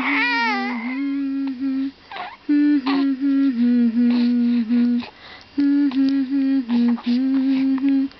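An adult humming a slow lullaby-like tune to soothe a baby: steady held notes that step up and down, with short breaths between phrases. A baby's wavering cry is heard briefly at the start.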